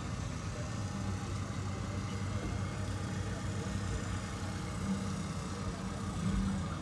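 Vehicle engine idling, a steady low rumble.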